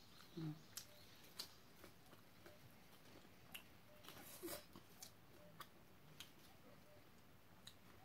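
Faint chewing of a mouthful of fresh greens: scattered soft clicks and mouth smacks, with a brief small hum about half a second in.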